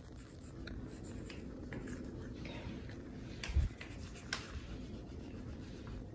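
Wax crayon being rubbed back and forth on paper, a soft scratchy colouring sound, with a short low knock about three and a half seconds in and a faint click just after.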